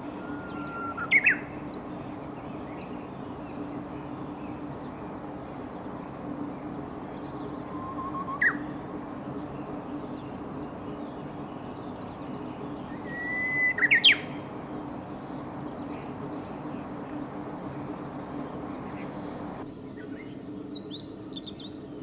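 Japanese bush warbler singing its 'hoo-hokekyo' song three times, each a held whistle that breaks into a quick rising flourish; the last phrase is the longest and loudest. Near the end, a short, higher twittering phrase from a meadow bunting.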